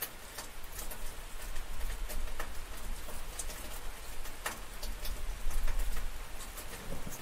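Steady rain falling, with many separate sharp drips striking a surface close by and a low rumble underneath that swells around the middle.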